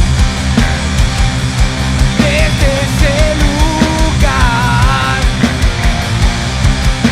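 A live rock band playing a heavy, punk-edged song: steady pounding drums, distorted guitars and bass, with a lead melody bending and wavering in pitch over them.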